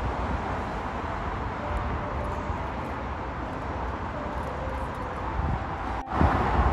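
Steady distant city traffic noise with a low rumble. It drops out briefly near the end and comes back louder.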